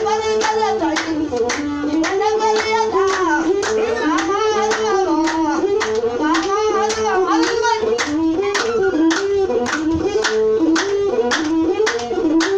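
Ethiopian azmari music: a masinko (one-string bowed fiddle) melody moving in small steps, over steady hand clapping about twice a second.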